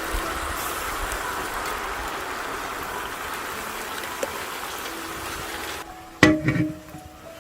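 Meat and vegetables sizzling steadily on a hot sadj. The sizzle cuts off abruptly near the end as music begins.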